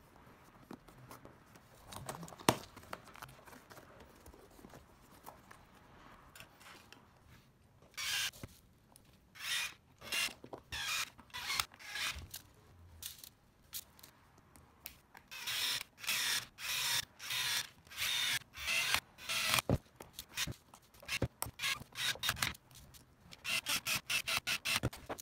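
Rubber RC truck tyre being squeezed and worked by hand onto its wheel, making a quick series of short rubbing, scraping strokes that come thicker in the second half, with a single sharp tap early on.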